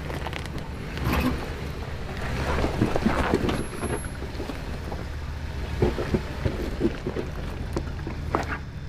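Toyota 4Runner engine running at low revs while crawling on a rocky trail, with scattered crunches and clicks of tyres and stones.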